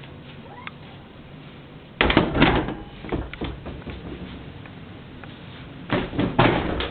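Door and closet handling noise: a sudden rattling clatter about two seconds in, scattered knocks after it, and another clatter near the end.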